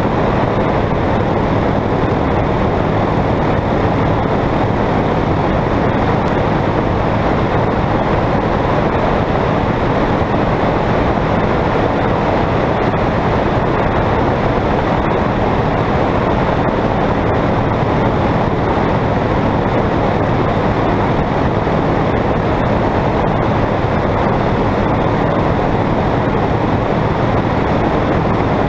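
Single-engine high-wing light aircraft in level flight: engine and propeller running steadily at cruise power, under a constant rush of airflow.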